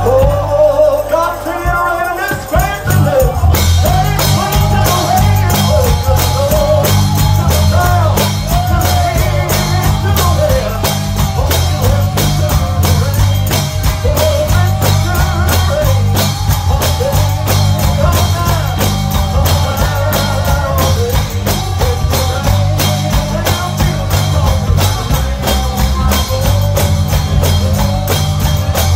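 Live gospel singing with a band: a lead voice over bass, drum kit and tambourine. The drums and tambourine come in fully about three and a half seconds in.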